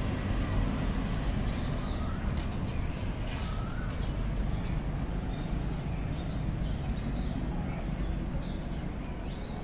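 Outdoor street ambience: a steady low rumble with small birds chirping repeatedly in short high notes.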